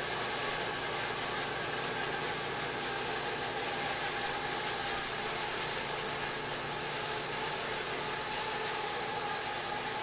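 Homemade vertical bandsaw sawmill and its dust collector running steadily while the carriage is driven back in reverse: an even machine noise with faint steady tones and no change in level.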